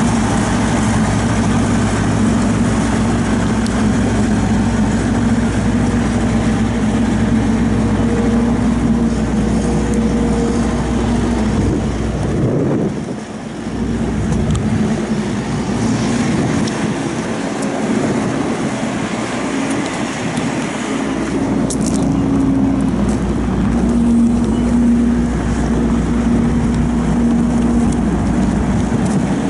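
CAT Challenger SP115B self-propelled swather's CAT diesel engine running steadily as the machine drives. The sound dips briefly a little before halfway, then grows fuller again.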